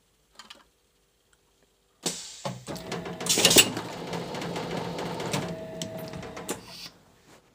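Blow moulding machine for small plastic bottles running through a cycle: after about two seconds of quiet it starts up with mechanical clatter and clicks, has a short loud hiss about a second and a half later, and stops just before the end.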